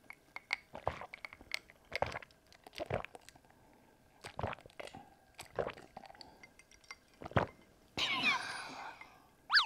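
Someone gulping cola from a glass, one swallow about every second, with a few light clinks of the glass. About eight seconds in, the drinking gives way to a short voiced 'ah' as the glass comes down.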